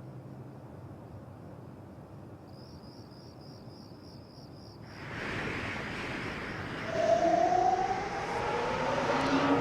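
Insects chirping faintly in a repeating high pulse, about four chirps a second. About halfway through, a rushing whoosh swells in, joined near the end by slow sliding, siren-like tones.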